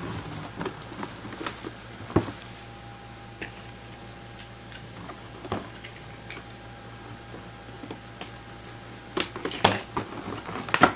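A cardboard box being handled and opened: scattered light clicks and taps of card and packaging, with a louder cluster of handling noises near the end, over a faint steady low hum.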